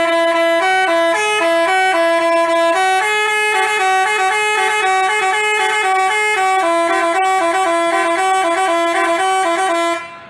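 Basuri telolet horn playing a quick tune, hopping back and forth between a few pitched notes in a steady rhythm. It cuts off abruptly near the end.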